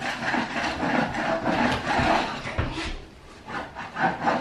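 Old wooden floorboards and debris scraped and rubbed by hand, with a couple of dull knocks about two seconds in and a short lull near the end.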